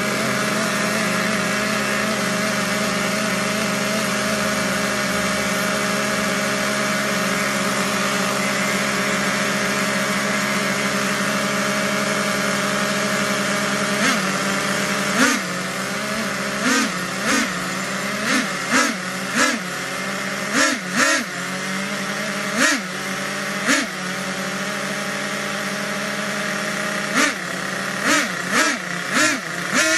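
Four Traxxas two-stroke nitro engines on one RC truck, all running together with a steady, high buzz. About halfway through, the throttle starts being blipped over and over, each blip a short rise in pitch and loudness, roughly one a second.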